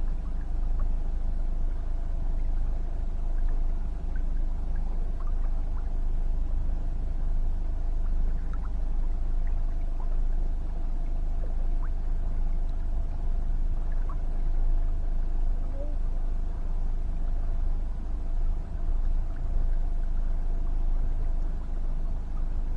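Boat motor running steadily, a low rumble with a faint steady whine over it.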